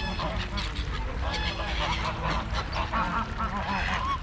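A flock of birds calling at once, many short overlapping honking calls, over a steady low rumble.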